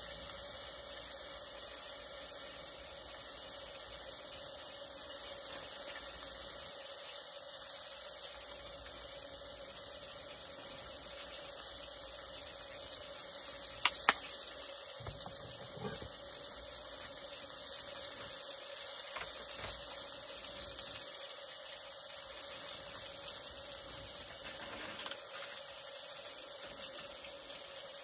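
Catfish frying in oil in a skillet on a butane camp stove: a steady sizzle with a faint steady whine under it. Two quick clicks come about fourteen seconds in.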